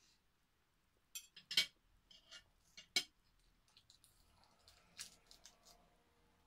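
Metal fork and knife clinking against a plate: a few sharp clinks between about one and three seconds in, the loudest at about one and a half seconds and at three seconds, then only faint small clicks.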